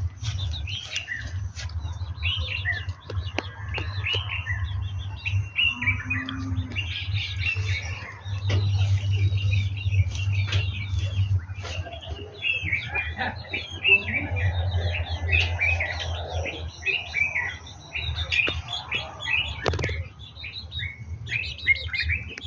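Birds chirping busily, many short quick calls one after another, over a steady low hum.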